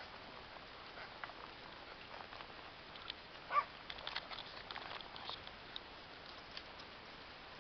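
Faint, scattered clicks and soft steps of a ridden horse walking over grass, with one short, sharp animal call about three and a half seconds in.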